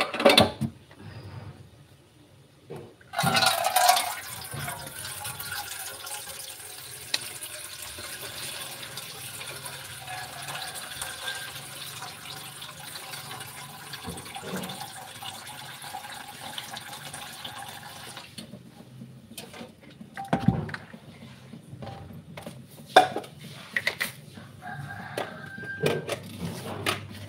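Water running into a plastic basin of grated coconut for about fifteen seconds, the first step of pressing out coconut milk. Scattered knocks and clatter of bowls follow.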